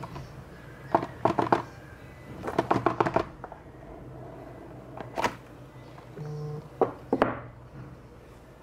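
Fingers handling and tapping the white cardboard box of an Apple Magic Mouse 2 as it is slid open, in several short clusters of light clicks and taps.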